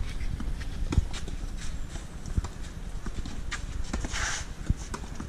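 Tennis rally on a clay court: sharp pops of the ball off the racket strings and its bounces, the loudest about a second in, with the players' footsteps on the clay between shots.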